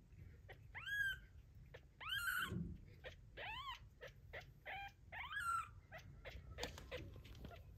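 Newborn kitten mewing repeatedly, a separated neonate calling for its mother: a string of high, squeaky calls, each rising then falling in pitch, about four loud ones with shorter, fainter ones between.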